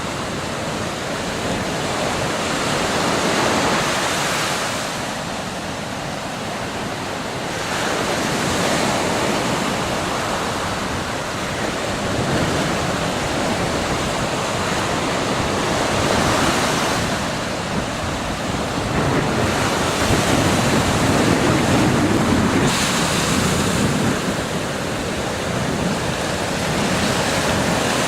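Ocean surf breaking on a beach, the wash of the waves rising and falling every few seconds.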